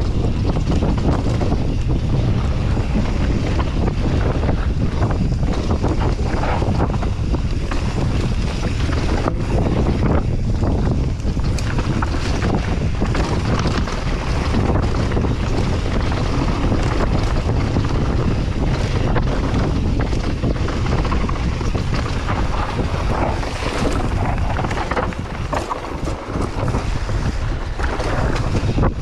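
Mountain bike descending a dirt trail, heard from the rider's point-of-view camera: wind buffeting the microphone and tyres rolling over the ground, with frequent knocks and rattles from the bike over bumps. It eases off briefly about 25 seconds in.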